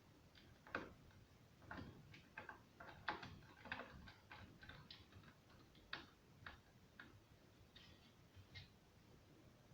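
Faint, irregular light clicks and taps, about a dozen of them, spaced unevenly, as from small parts or tools being handled.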